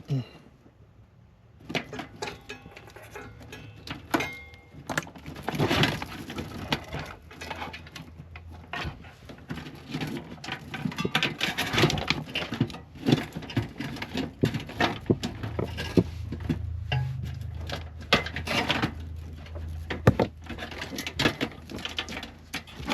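Irregular clicks, knocks and rattles of metal and plastic computer parts being handled and worked on inside a PC case. A low hum runs under them for much of the middle.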